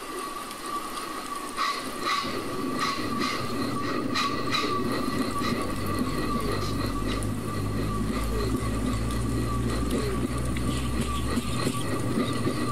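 Vocal imitation of a British Southern Region electric multiple unit moving off. Irregular clicks like wheels over rail joints come in the first half, then a low motor hum builds and holds steady, all over a steady high whine.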